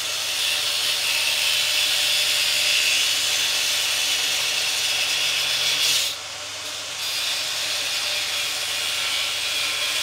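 Handheld power tool cutting through a wing mirror's plastic and aluminium base, a steady gritty cutting noise that eases off for about a second some six seconds in, then carries on.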